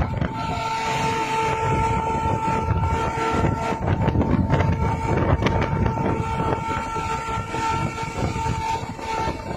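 Truck air horn blaring in one long steady blast of about nine seconds, over the low rumble of truck engines running.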